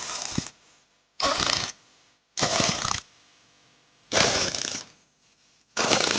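Five short bursts of metallic workshop clatter, each under a second and each starting and stopping abruptly, with near silence between them.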